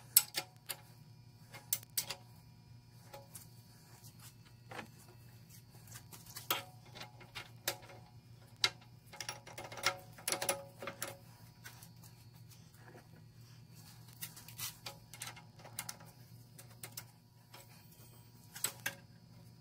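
Scattered sharp metallic clicks and clinks of a Sheldon lathe's steel change gears and a wrench being handled as the end gear train is fitted, busiest about halfway through, over a steady low hum.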